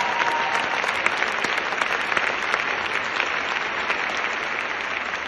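Large audience applauding, a dense patter of many hands clapping that slowly fades.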